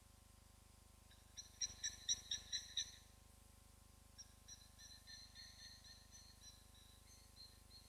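High chirping animal calls: a quick run of about seven loud, clipped notes, then after a short pause a softer, longer run of similar notes that fades away.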